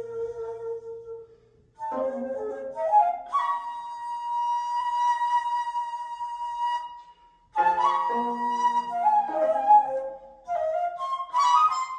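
Daegeum (large Korean transverse bamboo flute) playing a slow melody: a held note that breaks off about a second in, then a rising phrase onto a long sustained high note, a short pause, and phrases that step downward before climbing again near the end.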